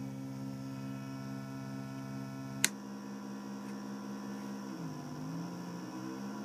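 Homemade Skönt oscillator noise box droning on a steady pitched tone with many overtones. A sharp click a little over halfway through changes the tone, and about two seconds later the pitch swoops down and back up as a knob is turned.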